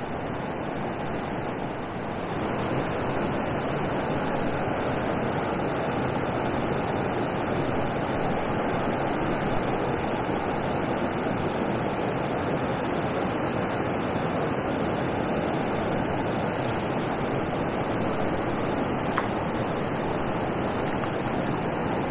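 Steady rushing of water pouring over a river weir, with wind, getting a little louder about two seconds in.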